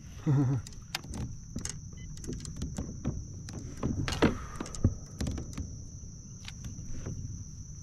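Scattered clicks and knocks of fishing tackle and kayak hardware as an angler works a rod and leans over the side of a plastic fishing kayak, with a short vocal exclamation just after the start.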